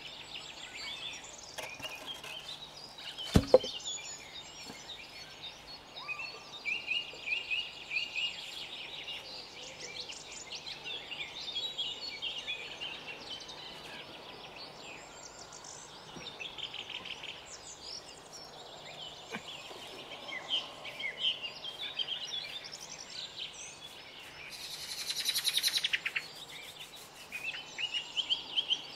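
Several wild songbirds singing and calling together, a mix of chirps and trills, with a fast trill near the end. A single sharp knock sounds about three seconds in.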